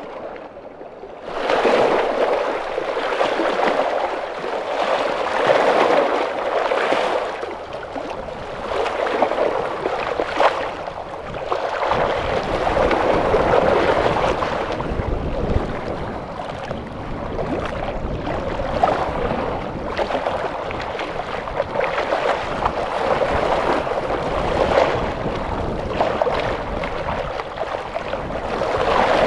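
Small sea waves washing and splashing against stone blocks at the water's edge, swelling again every second or two. From about twelve seconds in, wind rumbles on the microphone.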